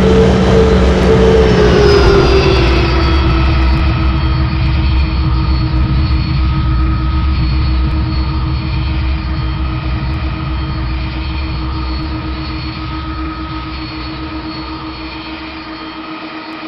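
Airbus A330 jet engines spooling down after landing. The engine tone falls in pitch over the first few seconds, then holds a steady whine that slowly grows quieter. A low rumble underneath cuts out near the end.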